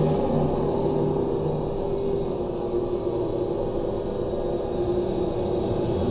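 Carvana car vending machine's lift running, a steady mechanical hum with a low rumble as it carries a car down the tower.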